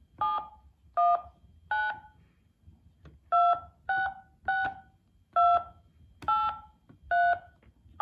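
DiamondTel Model 92 car phone's keypad being dialed: nine touch-tone (DTMF) beeps, each a short two-note tone, three in quick succession, then a pause before six more.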